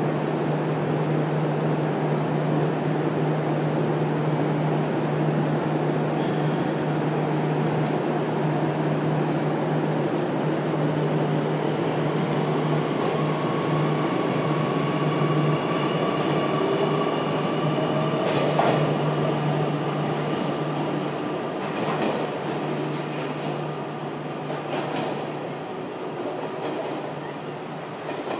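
JR Kyushu 817 series electric train standing with a steady low hum, then pulling out of the station. From about twelve seconds in a motor whine rises in pitch, a few wheel clacks sound, and the train fades as it draws away.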